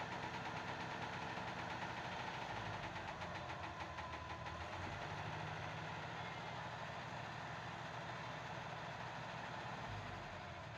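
Massey Ferguson 385 tractor's diesel engine idling steadily, with the tipping trolley held raised.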